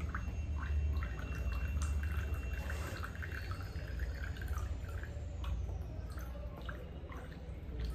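Water dripping and trickling from the outlet of a small inline water filter into a plastic cup as muddy water is squeezed through it, in many short irregular drips over a low steady hum.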